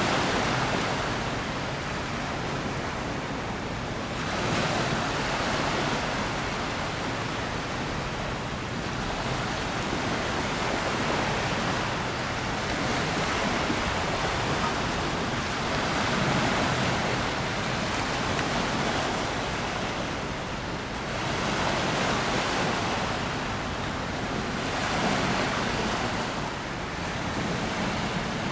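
Rushing noise of wind and river water at the shore, swelling and easing every few seconds; no distinct sound from the passing cargo ship stands out.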